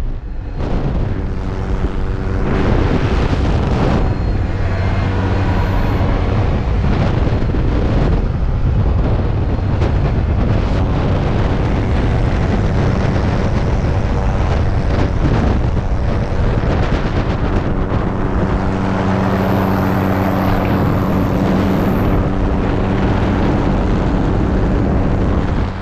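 Helicopter in flight heard from its open doorway: a steady engine and rotor drone with a few low tones, under heavy wind buffeting the microphone.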